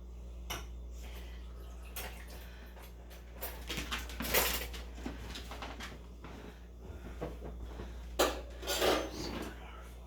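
Kitchen utensils and a pot clinking and scraping, with louder clatter about four seconds in and again near the end, over a steady low hum.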